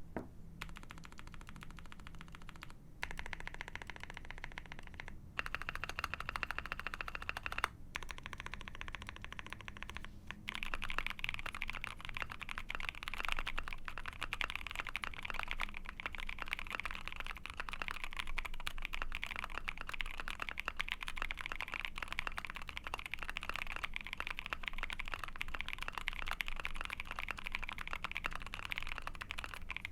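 Typing on an Ai03 Vega mechanical keyboard with a POM plate, IFK OG keycaps and lubed Giant Silks linear frankenswitches (NK Silk bottom housing, Milky top housing, Giant V5 UHMWPE long-pole stem). The keystrokes come in short runs with brief pauses for the first ten seconds or so, then as steady fast typing. The builder finds this sound very dead and muted.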